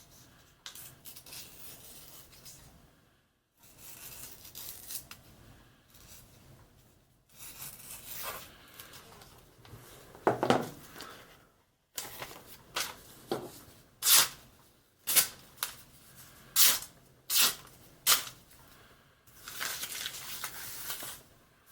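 A knife blade being stroked along a sharpening surface, heard as scraping and rubbing passages broken by abrupt cuts. In the second half come a run of short, sharp strokes about a second apart.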